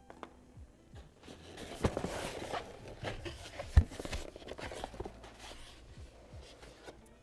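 Hands handling unboxing packaging: rustling and scraping for a few seconds, with one sharp knock near the middle as something is set down or bumps the box.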